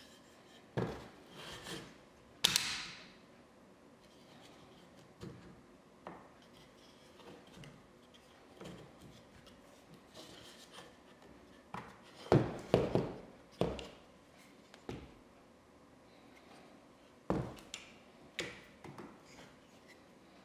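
Handling noises from an 1833 wooden plow plane being worked on by hand: scattered knocks, clicks and rubs of its wooden body, arms and metal parts. The loudest knock, about two and a half seconds in, has a short ringing tail, and a quick run of knocks comes about twelve to fourteen seconds in.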